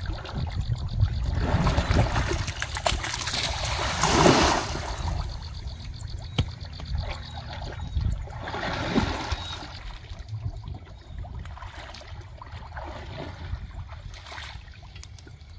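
Water sloshing and splashing in surges as people wade chest-deep through a shallow canal, loudest a few seconds in, with a low steady rumble underneath.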